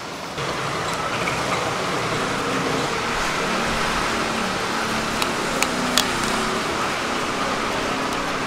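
Steady street background noise of traffic and a low machine hum around a street food stall, with three short sharp clicks a little past halfway.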